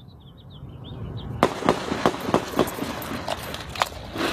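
Gunfire heard through a bystander's phone recording: a rapid, uneven string of about eight shots, starting about a second and a half in.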